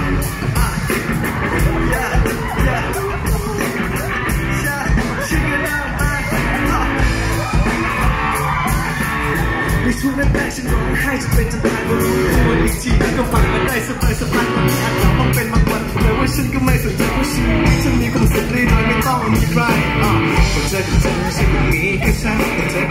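Live band music with a male singer singing into a microphone over drums, bass guitar and keyboard.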